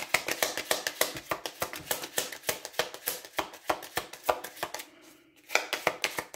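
A deck of cards being shuffled by hand: a quick, continuous run of soft card clicks that pauses briefly about five seconds in, then starts again.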